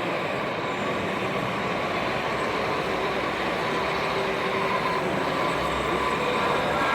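A train passes with a steady rail rumble, faint high tones running through it that grow louder near the end.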